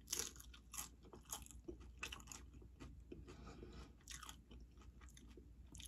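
A person chewing nachos with tortilla chips: irregular crunches as the chips are bitten and chewed.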